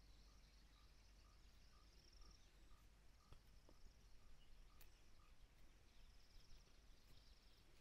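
Near silence: faint open-air field ambience with a thin insect hiss and a soft chirp repeating about twice a second that stops about five seconds in, plus a few tiny clicks.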